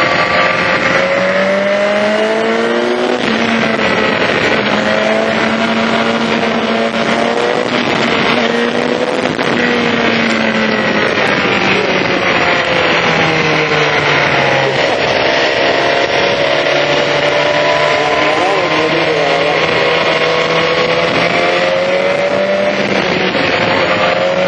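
BMW S1000XR inline-four engine through an Akrapovic exhaust, running under way at fairly steady revs. Its pitch drifts up and down as the throttle opens and eases off.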